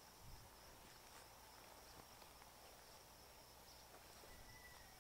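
Near silence, with a faint, steady, high-pitched insect trill and one soft low knock just after the start.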